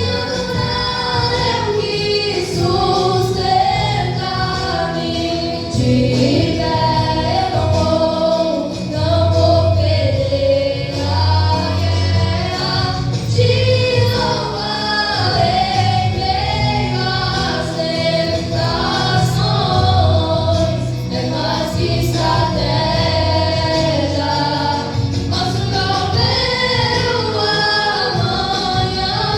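Two girls singing a gospel worship song over instrumental backing with a steady bass line.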